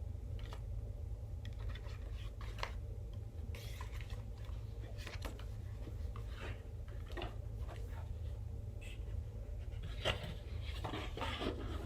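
Paper and cardboard album contents being handled, with scattered soft scratches, rubs and clicks over a steady low hum.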